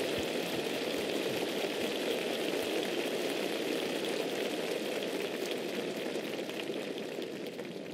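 Steady crackling haze of distant applause from an arena crowd, easing off near the end.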